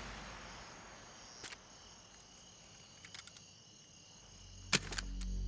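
Crickets chirping steadily in a quiet night ambience, with a few faint clicks and one sharp click near the end, as a low drone swells in.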